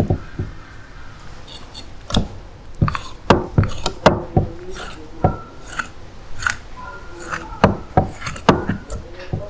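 Kitchen knife scoring close-spaced cuts across a cleaned traíra fish, slicing through the flesh and fine bones so they will fry crisp: a series of irregular knocks and scrapes.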